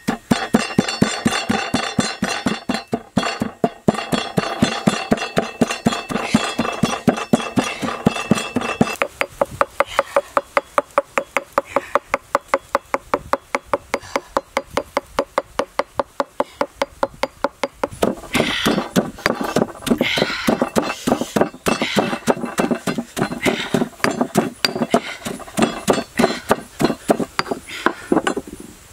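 Pestle pounding red chillies into a paste in a stone mortar, in rapid, regular strokes several times a second. The strokes go quieter for a stretch near the middle, then loud again.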